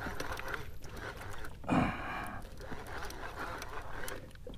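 A man breathing hard, panting with effort while cranking a fish up on a conventional reel from about 400 feet down. There is one louder exhale about two seconds in.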